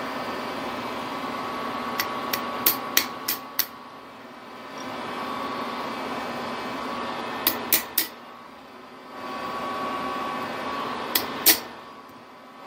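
Light hammer taps on a steel key being driven into the keyway of a mini lathe spindle, in three bursts: about six quick taps, then three, then two near the end. A steady hum runs underneath.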